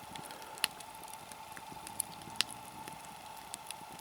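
Campfire burned down to hot coals, crackling: a few sharp, irregular pops over a faint hiss.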